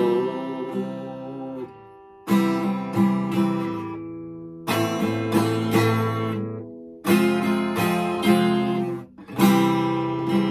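Acoustic guitar strumming the song's instrumental ending without vocals: a full chord about every two and a half seconds, with lighter strokes between, each chord left to ring and fade.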